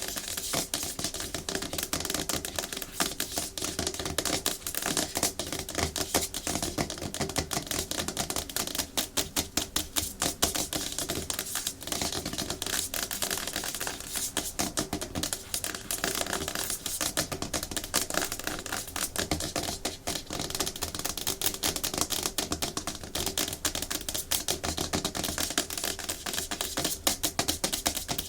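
Natural fingernails tapping fast on a hard plastic surface: a dense, continuous stream of sharp clicks, many a second.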